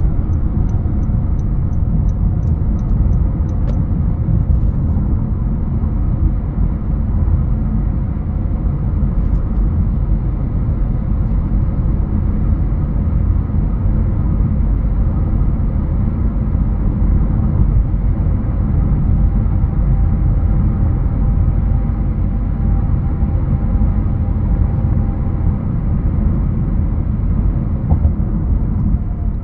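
A 2021 Honda HR-V Sport AWD driving, giving a steady low rumble of road and engine noise. A run of quick, even ticks sounds for the first few seconds.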